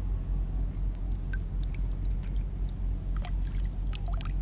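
Water sloshing and trickling around a person wading waist-deep while hauling in a fishing longline on a plastic jerrycan float, with scattered small clicks and drips.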